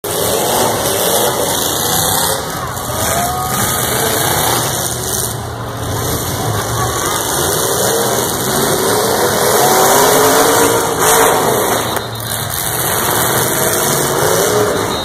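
Several demolition derby pickup trucks' engines running and revving, their pitch rising and falling again and again as the trucks manoeuvre.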